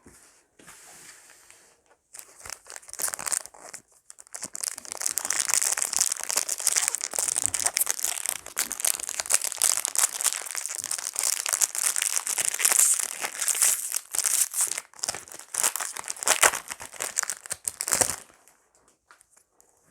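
Foil wrapper of a Pokémon Go booster pack crinkling and tearing as it is ripped open and handled, a dense crackle that starts about two seconds in and stops near the end.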